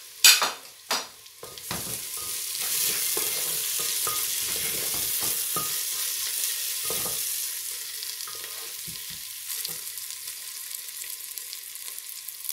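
Ginger-garlic paste and chopped onions sizzling in hot oil in an aluminium pressure cooker, stirred and scraped with a wooden spatula. Two sharp knocks in the first second, then a steady frying hiss with scattered scrapes and taps, easing slightly in the second half.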